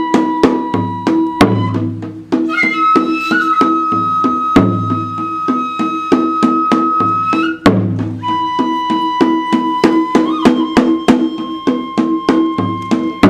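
Kagura music: a bamboo transverse flute holding long, high notes that shift pitch a few times, over steady, quick strokes on taiko drums.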